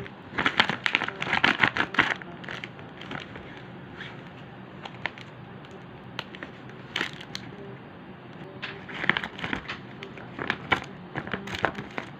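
Clear plastic zip pouch crinkling and crackling as it is handled and unzipped by hand, in bursts of sharp rustles: a long burst over the first two seconds, a short one about seven seconds in, and more near the end.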